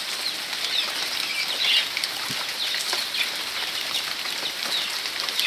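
Steady rain falling, an even patter of many small drops on leaves and bare ground.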